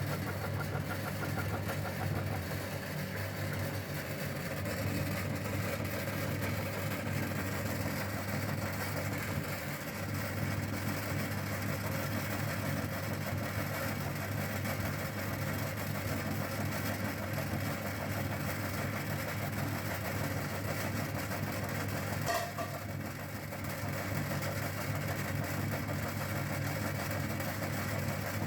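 Electric meat grinder running steadily with a low motor hum while it grinds bar soap. There is a brief click about 22 seconds in.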